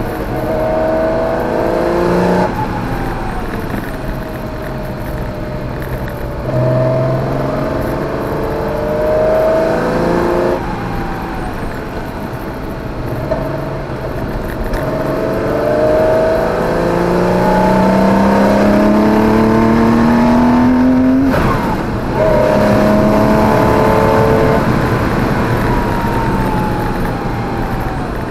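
Porsche 914/6's air-cooled flat-six heard from inside the car on track, revving up hard through rising sweeps of pitch. The revs drop sharply three times, then climb again, and fall away in one long glide near the end.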